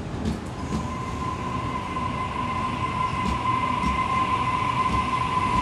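Sydney Trains Waratah double-deck electric train pulling into the platform and slowing, running with a low rumble. Over it is a steady high whine that grows louder.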